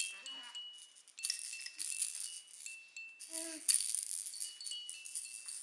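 A baby's rattle toy with little bells or chimes being shaken in bursts, rattling with clear ringing tones. A baby gives a short coo about three and a half seconds in.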